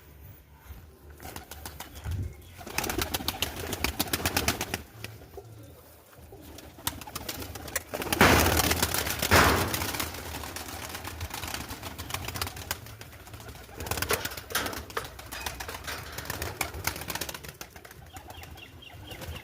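Takla pigeons cooing, with bouts of rapid clattering, the loudest about halfway through.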